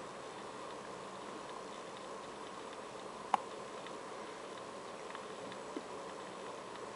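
Steady low background hiss with a few faint ticks, one sharp click about halfway through and a fainter click near the end.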